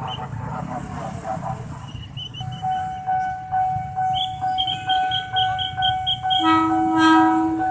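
Level-crossing warning bell pulsing steadily at about two to three strokes a second, joined by a higher-pitched pulsing alarm, over the low rumble of a train. About six and a half seconds in, a train horn sounds one long blast.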